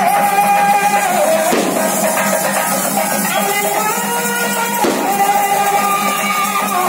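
Music: a melody of long held notes that slide between pitches, over percussion.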